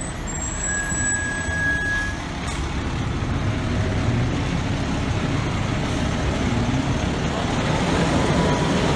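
Pierce quint fire truck driving slowly toward and past, its diesel engine running and growing louder as it nears. A short high beep sounds about a second in.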